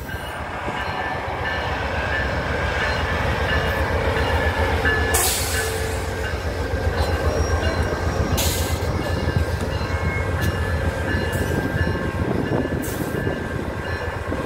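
VIA Rail GE P42DC diesel locomotive rolling in alongside the platform at the head of its train: a deep, pulsing engine rumble with wheel noise, growing louder over the first few seconds. Thin steady squealing tones run over it, and a few short bursts of hiss come through.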